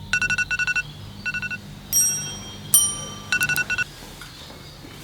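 Electronic alarm beeping: rapid bursts of short, evenly spaced beeps at a steady pitch, with two longer tones between the bursts.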